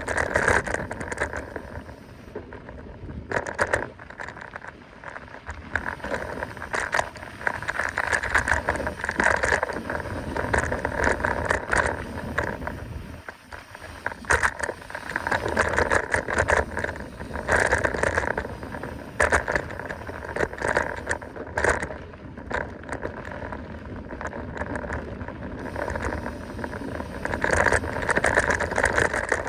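Mountain bike riding over rough trail: tyres rolling on the ground while the bike rattles and clicks, louder over rougher stretches and easing off briefly now and then.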